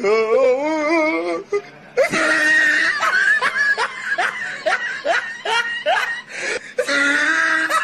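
Loud laughing, wavering at first, then a long run of short laughs about three a second.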